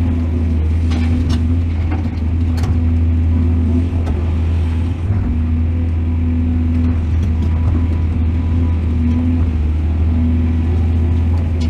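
Excavator engine running steadily under load, with a few short sharp clicks or knocks in the first few seconds.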